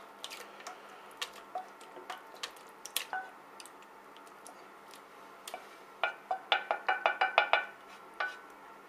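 A wooden spoon scraping and knocking against a frying pan as a thick, wet liver mixture is scraped out into a plastic food-processor bowl. Scattered soft knocks come first, then a quick run of taps, about six a second, from about six seconds in, each with a short ringing tone.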